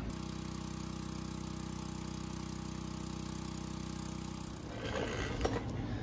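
A steady machine hum, one unchanging pitch, that cuts off suddenly about four and a half seconds in, followed by a few light clicks and knocks of handling.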